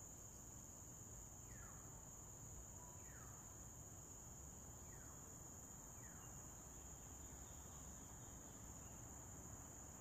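Faint, steady high-pitched drone of insects. Four faint falling whistles come and go over several seconds.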